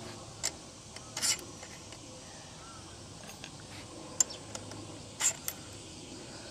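Light clicks and short scrapes of small aluminium headset spacers being handled and fitted at a road bike's stem and steerer tube: a few separate taps, with a slightly longer scrape about a second in.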